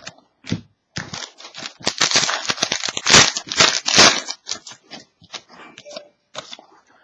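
Wrapper of a 2012-13 Panini Certified hockey card pack being torn open and crinkled, a dense crackle loudest from about two to four seconds in, followed by light clicks and rustles of cards being handled.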